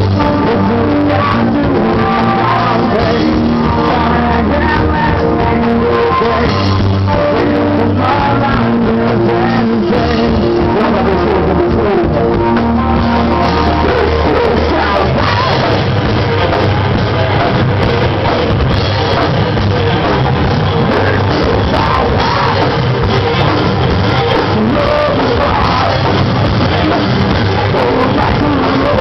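Rock band playing a song live, with singing over guitar, bass and drums. The band's sound fills out and gets busier about halfway through.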